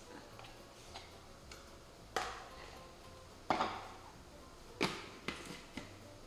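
A handful of sharp kitchen clinks and knocks, utensils and containers handled while cheese is readied for blending, the loudest about two, three and a half and five seconds in.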